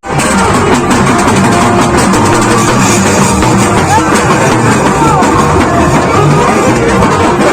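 Loud music with a busy, driving drum beat, starting abruptly at an edit.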